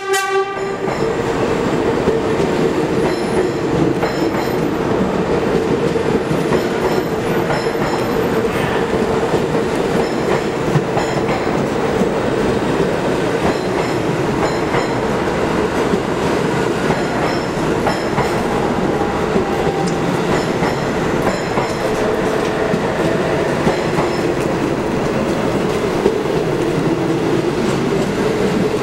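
NYC Subway R46 train running along the station platform for the whole stretch: continuous rumbling and clattering of wheels over the rails with a steady tone underneath. The end of a horn blast is heard right at the start.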